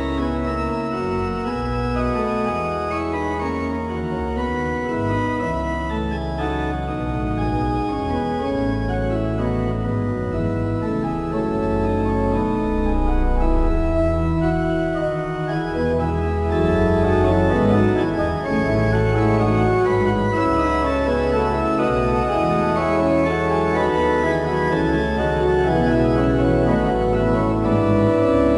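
Organ music: sustained chords over held bass notes that change every second or two, growing louder about halfway through.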